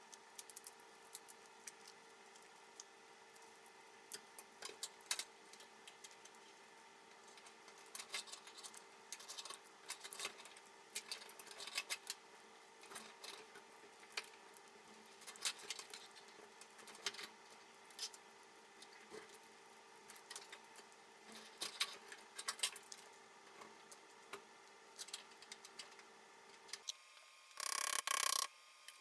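Scattered small clicks and rattles of metal and plastic parts being handled as a fuel pump and sending unit assembly is fitted into the top of a steel fuel tank, over a faint steady hum. Near the end comes a louder burst of rapid taps about a second long: a rubber mallet driving a screwdriver against the ring that holds the pump in the tank.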